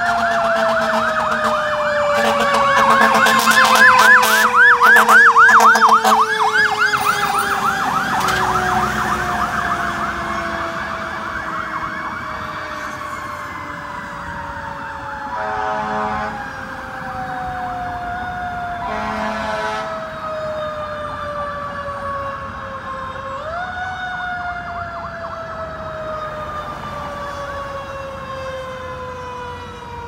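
Fire apparatus sirens: a mechanical Q-siren coasting down in long, slowly falling wails, revved back up about three quarters of the way through. A fast warbling electronic siren sounds over it in the first several seconds, and two short air horn blasts come around the middle.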